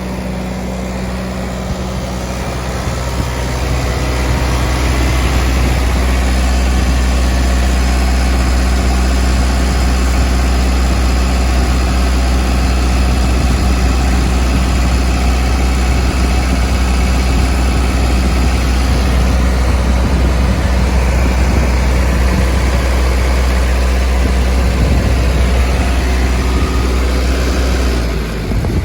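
Perkins diesel engine of a 19 kW trailer-mounted generator running steadily at constant speed, with a strong low hum; it gets a little louder a few seconds in.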